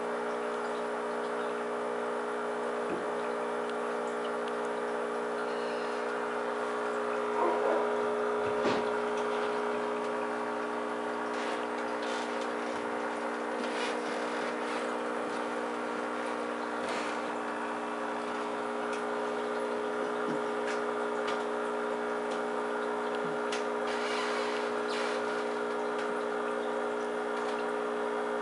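Aquarium pump humming steadily on several fixed pitches over a soft hiss of moving water, with a few light clicks and a couple of small knocks about eight seconds in.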